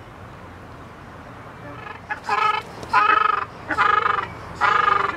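Ruddy shelduck calling: four loud calls in a row, about one every 0.8 seconds, starting about two seconds in.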